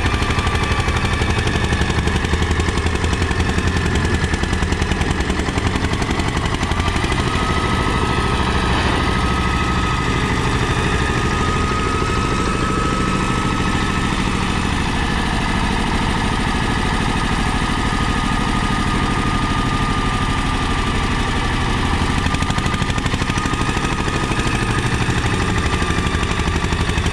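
Mahindra 235 DI tractor's diesel engine running steadily under load as it pulls a tine cultivator through the soil, with a rapid, even beat.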